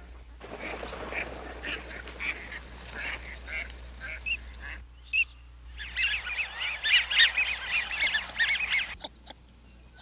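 Flock of ducks and geese calling: scattered quacks and honks, then after a short lull a dense chorus of many overlapping high calls that stops about a second before the end.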